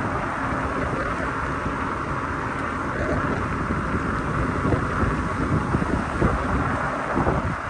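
Wind buffeting the microphone and the steady rush of road noise while riding a Cyrusher XF800 fat-tyre electric bike.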